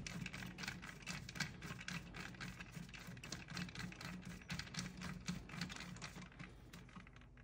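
Faint, rapid light ticking as a screwdriver with a Torx bit turns the retainer bolts snug in a copper welding mandrel's locking block.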